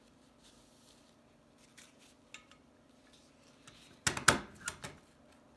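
A desk stapler pressed down through folded paper towel: a cluster of sharp metallic clacks about four seconds in, after a few faint ticks of paper handling.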